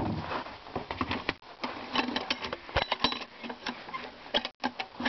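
Irregular clicks, knocks and rattles of small equipment being handled, with a brief dropout near the end.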